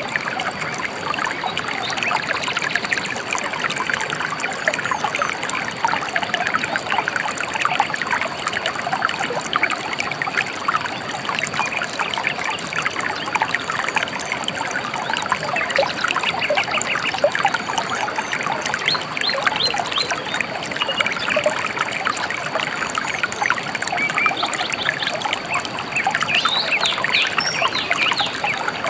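Shallow river water trickling and babbling steadily, with birds chirping in short bursts of quick high notes now and then, most densely near the end.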